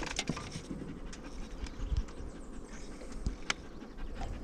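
A dog panting, with a few sharp clicks.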